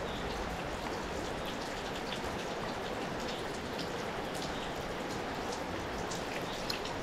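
Steady rush of running water with scattered faint ticks of drops.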